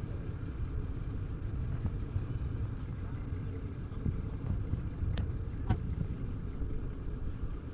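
Steady low outdoor rumble, with two sharp clicks about half a second apart a little past the middle.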